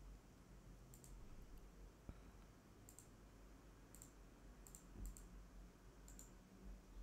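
Faint computer mouse clicks, a handful spread over several seconds, among them a quick double click about two-thirds of the way in.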